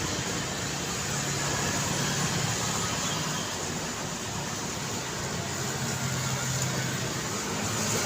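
City street traffic: cars and motorbikes running along the road, a steady wash of traffic noise with a low engine hum that swells and fades.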